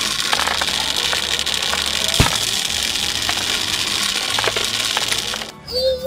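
Cartoon sound effect of a mass of balls tumbling together: a dense, steady crackling clatter with a few sharper clicks, cutting off about five and a half seconds in. Short bright, bouncing synth notes start just after it stops.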